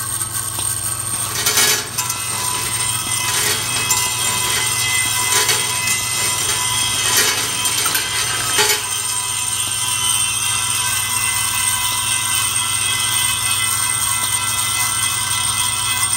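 Axle step feeder machine running, with a steady hum made of several held tones. Sharp metallic knocks come every second or two during the first half as the feeder cycles, then only the hum goes on.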